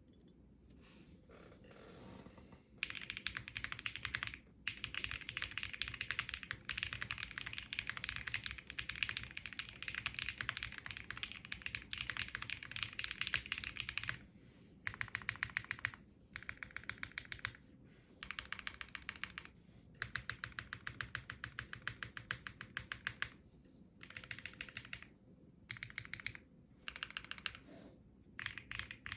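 Mechanical keyboard with KTT Hyacinth linear switches in a Tofu60 case being typed on. Fast continuous typing starts about three seconds in and runs for about ten seconds, then comes in shorter bursts of keystrokes broken by brief pauses.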